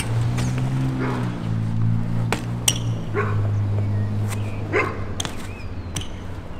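A dog barking a few short times over a steady low hum, with a few sharp clicks in between.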